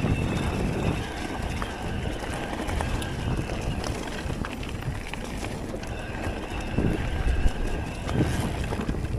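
Electric mountain bike ridden along a rough dirt trail: the tyres roll and the bike rattles over the ground, with wind buffeting the microphone. A faint whine comes and goes, and a couple of heavier knocks land near the end.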